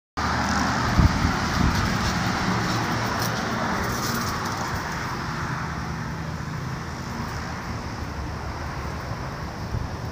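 Road traffic going by, a steady rush of tyres and engines that slowly fades, with a single thump about a second in.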